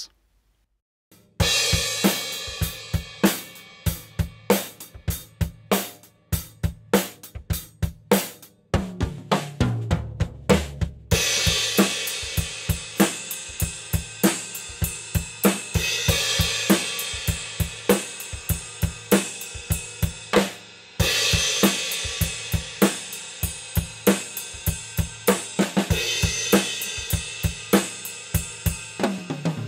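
Acoustic drum kit played in a steady groove, with bass drum, snare and hi-hat and two long stretches of ringing cymbal wash, starting about a second in. It is heard as recorded only through a Zoom H8's built-in XY condenser mics, set wide at 120 degrees above the kit.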